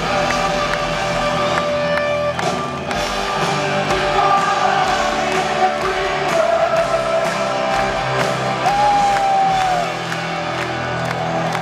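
Live rock band with several electric guitars and drums playing at full volume in a large hall. There are long held guitar notes, one about nine seconds in that slides downward, over crowd whoops.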